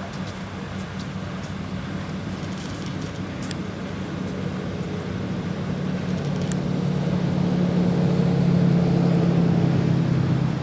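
A vehicle engine running steadily, growing louder over the last few seconds and easing just before the end. A few short high clinks come about three and six seconds in.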